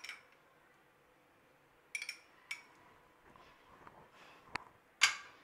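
A few light clinks of kitchenware against a glass bowl, spread out over the second half, with the loudest, ringing clink near the end.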